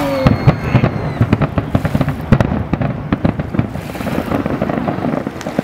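Closing barrage of a fireworks display: many firework shells bursting in quick succession, the bangs thinning out after about four seconds.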